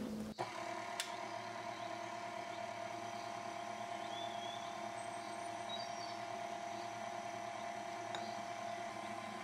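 KitchenAid stand mixer with a dough hook running with a steady motor hum, working flour in a glass bowl. A couple of light clicks and a few faint high chirps are heard over it.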